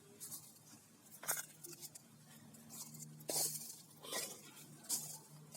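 A few scattered light clicks and clinks, as of small hard objects being handled, over a faint steady low hum.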